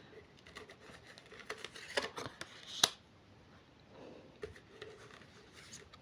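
Tarot cards being handled and laid out: soft rustling with several sharp card snaps and taps, the loudest nearly three seconds in.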